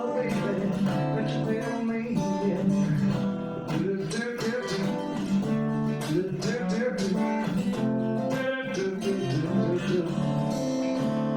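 Acoustic guitar strummed and picked in a steady rhythm: an instrumental passage between the verses of a song.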